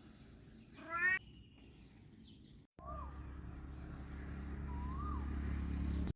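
A house cat meows once, briefly, about a second in. After a cut, a steady low rumble runs on with two short chirps over it.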